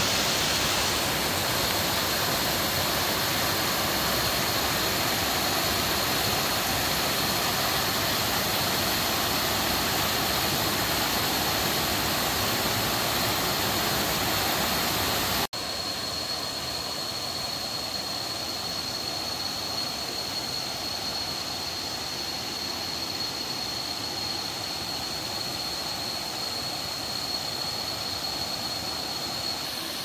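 Waterfall at Kuang Si Falls: water rushing and splashing steadily, with a thin steady high tone above it. About halfway through it cuts abruptly to a somewhat quieter, softer rush.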